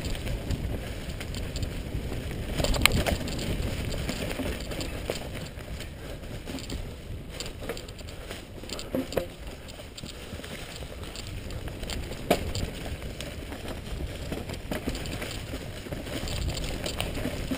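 Mountain bike rolling fast over a leaf-covered dirt trail: a steady noise of tyres on dry leaves and forest floor, with a few sharp knocks as the bike hits bumps.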